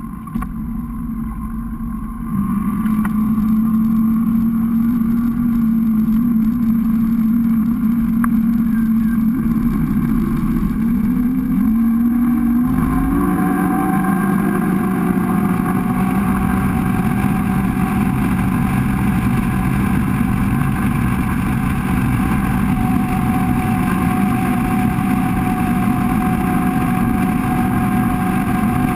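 Rigid inflatable boat's engine running steadily, getting louder about two and a half seconds in and rising in pitch around twelve seconds in as it is throttled up. From then on a steady rush of water and wind comes with it as the boat runs at speed.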